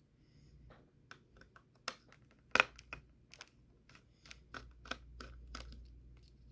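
Irregular small clicks and taps of a hand screwdriver and its interchangeable bits being handled, as a star (Torx) bit is fitted and worked on the laptop battery's screws. The loudest click comes about two and a half seconds in.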